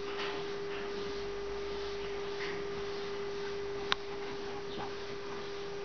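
Steady one-tone hum, with a single sharp click about four seconds in.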